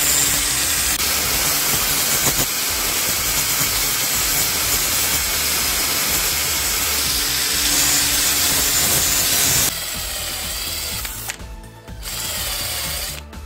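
Electric angle grinder with an abrasive disc grinding the steel head of a claw hammer: a loud, steady hiss of disc on metal that cuts off about ten seconds in, followed by a quieter stretch.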